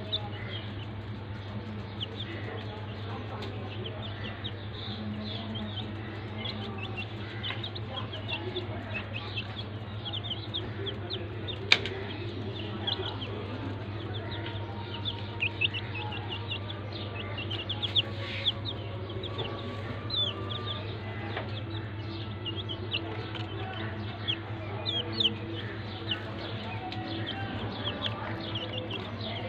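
Young chicks peeping, a steady scatter of short high cheeps, over a steady low hum. A single sharp click stands out about halfway through.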